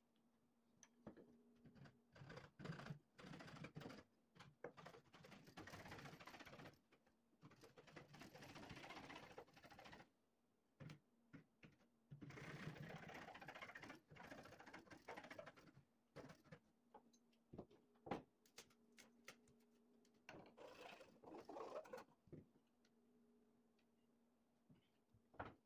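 Small hacksaw cutting through a softwood slat in four bouts of quick back-and-forth strokes, with short pauses and a few light knocks between, over a faint steady hum.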